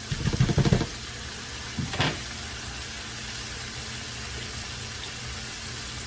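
Noodles and vegetables sizzling in a pan, with a utensil clattering and scraping against the pan for most of the first second and again briefly about two seconds in.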